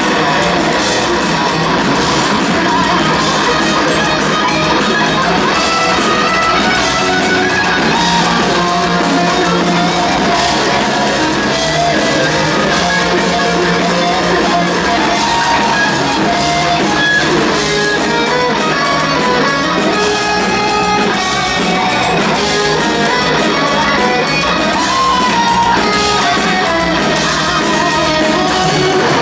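Heavy metal band playing live, loud, with electric guitars to the fore and little or no singing.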